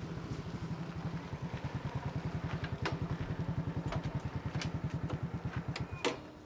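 Small motorcycle engine idling with a steady, rapid low pulse, with a few light clicks. A sharp click just after six seconds in, and the engine cuts out: it is switched off.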